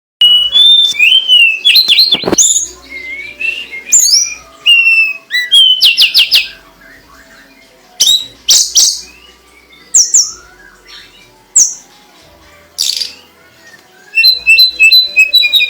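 A songbird singing in phrases: varied clear whistles that slide up and down, quick repeated trill notes, and sharp chirps, with short pauses between phrases.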